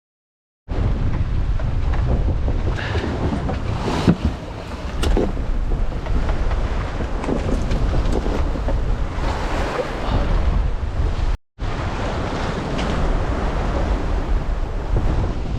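Strong wind buffeting the microphone over water rushing along a sailing yacht's hull, with a couple of sharp knocks. It starts about a second in and cuts out for a moment about eleven seconds in.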